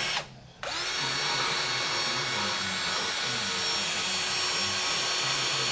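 Cordless angle grinder cutting a metal tube. It stops briefly just after the start, spins back up with a rising whine, and runs steadily through the cut.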